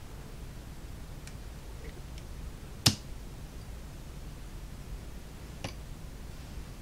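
Small clicks and taps while laser-cut wood parts are cut free from their sheet on a workbench: a few faint ticks and one sharp, much louder click about three seconds in, over a low steady hum.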